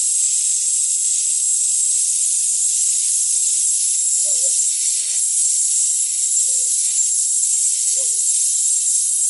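Gas torch flame hissing steadily as it heats a copper boiler end for silver soldering.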